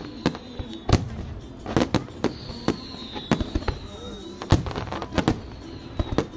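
Fireworks display: a rapid, irregular string of sharp bangs and cracks from shells bursting, some louder booms among them, over a continuous crackle, with a thin high whistle wavering underneath.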